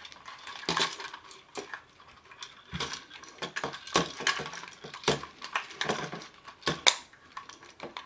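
Toy handcuffs being fumbled with by hand: irregular clinks and rattles of a metal chain and clacks of the plastic cuffs against the tabletop while the key is worked through the cuff's maze lock.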